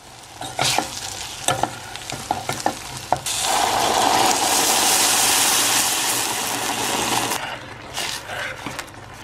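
Vegetables and tomato paste sizzling in a pot while a spoon stirs and scrapes, with scattered clicks. About three seconds in, a loud, even hiss starts and lasts about four seconds before the sizzling and clicks return.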